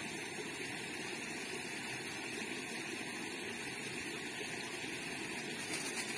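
Steady outdoor background noise, an even hiss with no distinct events, and a faint click near the end.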